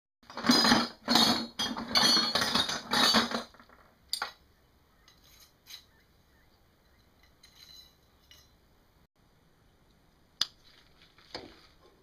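A hand rummaging through loose metal parts in a plastic bucket: a clattering jumble of small metallic clinks for about three seconds, then a few scattered single clicks as parts are picked out and handled.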